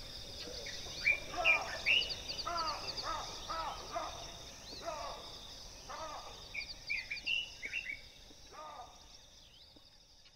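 Birds calling in repeated short, curved notes over a steady high-pitched insect trill. The sound fades down near the end.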